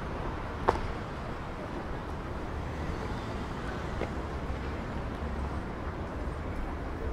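City street ambience: a steady low traffic rumble, with one sharp knock about two-thirds of a second in and a fainter one about four seconds in.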